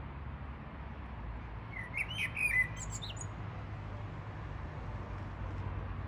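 A songbird sings one brief phrase of quick chirps and high whistles about two seconds in, over a steady low rumble.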